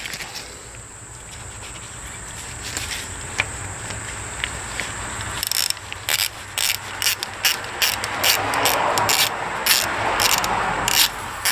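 Irregular sharp clicks and clatter of hand tools and parts being handled, coming thicker in the second half, over a steady high-pitched hiss. A rushing noise swells in the last few seconds.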